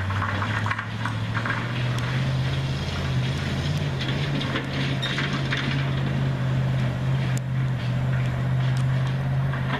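A large vehicle's engine running at a steady speed, with a few light clicks over it.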